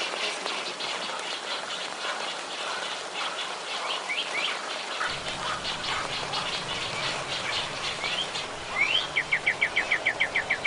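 Wild birds chirping in a steady scatter of short, high notes. Near the end one bird gives a rising note and then a fast, even run of about a dozen loud chirps.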